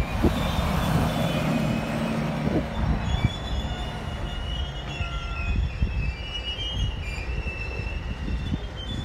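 Class 56 diesel locomotive's Ruston-Paxman V16 engine running with a low rumble, with short high-pitched squeals of rail wheels on the sidings. A road bus passes close by in the first couple of seconds, the loudest part.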